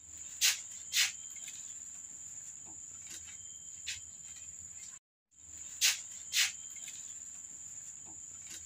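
Insects droning steadily on one high note, with a few short sharp sounds: two close together near the start and one about four seconds in. The sound drops out briefly about five seconds in, and the same few seconds then repeat as a loop.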